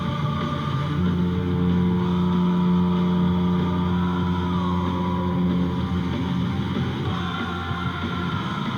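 Anaheim Ducks goal horn sounding a long, steady, low blast, fading out about six seconds in as rock goal music takes over.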